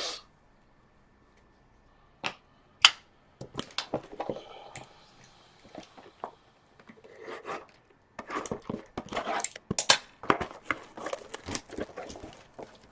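Trading cards, card packs and cardboard boxes being handled: a couple of sharp clicks, then irregular tapping, clicking and rustling of wrappers that gets busier near the end.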